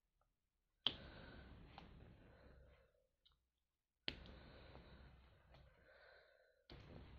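Faint clicks of a diamond painting pen pressing square resin drills onto the canvas: three sharp taps a few seconds apart, each followed by soft room hiss that fades away.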